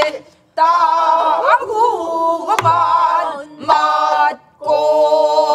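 A group of men and women singing pansori together in unison, in long held phrases with wavering, bending pitch, broken by two short breaths. About halfway through comes one sharp stroke on a buk barrel drum.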